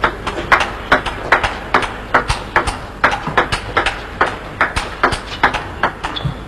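Celluloid table tennis ball clicking back and forth off rackets and table in a long, fast rally, about four sharp clicks a second, with the rally ending about six seconds in.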